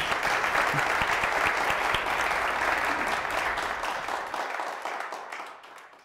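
Audience applauding, a dense steady clatter of many hands that thins and fades out near the end.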